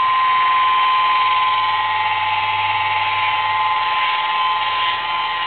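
Small handheld electric polisher with a foam pad running steadily against car paint, a constant high-pitched motor whine, applying sealant to the finish.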